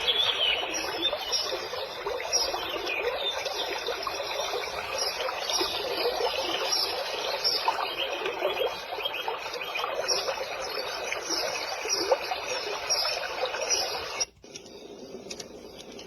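Nature soundtrack of trickling, babbling water with small chirps running through it, the kind of soothing sound a white noise machine plays. About fourteen seconds in it cuts off abruptly to a quieter, thinner sound.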